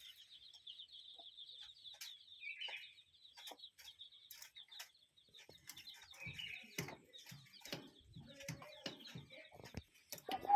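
Birds calling faintly: a high, fast trill for about the first five seconds, a few short chirps, and scattered clicks and taps.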